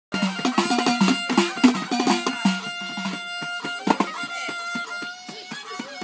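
Moroccan folk music: a violin held upright on the knee plays sustained notes over frame drums beating a quick rhythm. The drum strokes are heaviest in the first couple of seconds and lighter afterwards.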